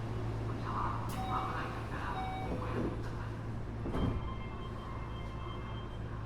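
Inside a Keio 8000 series electric train car, a steady low electrical hum, with short electronic chime tones in the first three seconds and a sharp thump about four seconds in.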